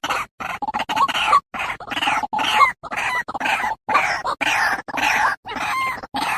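Male white-breasted waterhen calling: a fast run of rough, repeated call notes, about two or three a second, with short silent gaps between them.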